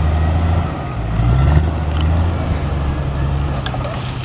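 Off-road 4x4 vehicle's engine running with a deep, steady rumble, revving up briefly about a second in. A few sharp knocks come near the end.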